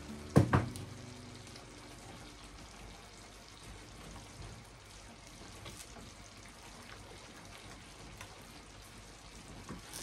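Two sharp knocks, like a utensil striking a saucepan, about half a second in, then a faint steady sizzle with light scraping clicks as the cheese sauce cooks and is stirred in the pan.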